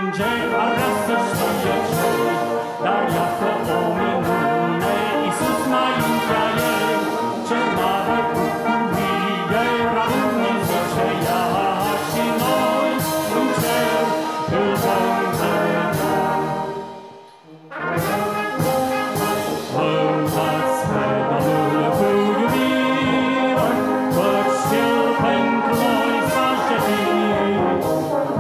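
Brass band playing a hymn, with trumpets, trombones and tubas sounding together in full chords. The music breaks off briefly about two-thirds of the way through, then plays on.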